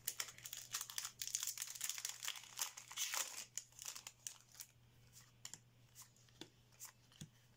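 Crinkling of a foil trading-card booster-pack wrapper as it is handled. This thins out after about three and a half seconds into scattered soft snaps of trading cards being slid and flipped through by hand.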